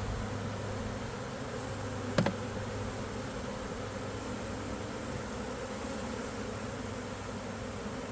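Many honeybees buzzing in a steady, dense hum, with a single sharp knock about two seconds in.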